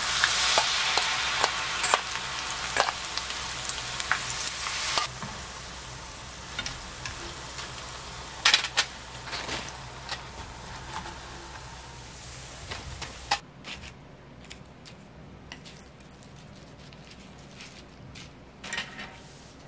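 Battered mugwort deep-frying in a small pan of hot cooking oil: a steady sizzle with sharp clicks of metal tongs turning the pieces. The sizzle weakens after about five seconds and cuts off abruptly about two-thirds of the way through, leaving only faint light taps and clicks.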